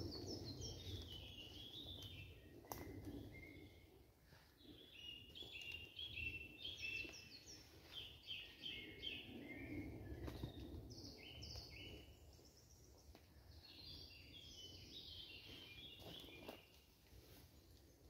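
Woodland birds singing: repeated phrases of quick high notes that step downward, over faint low background noise, with a few soft knocks.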